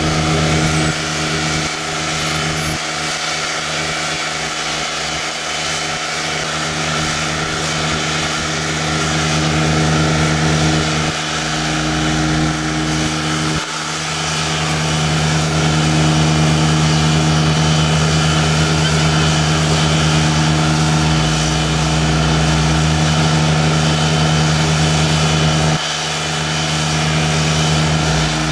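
Diesel engine of a crane barge running steadily while the crane lowers a reef module, a constant low hum that dips briefly a few times as the load on it changes.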